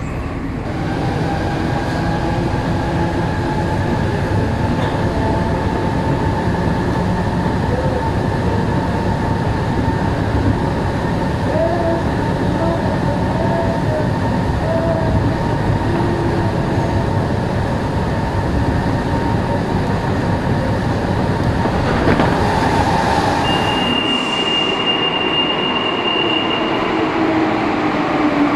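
Alstom NS-16 rubber-tyred metro train running, a steady rumble with its motors' whine held at an even pitch. A high steady tone sounds for about three seconds near the end, and the motor whine then falls in pitch as the train slows.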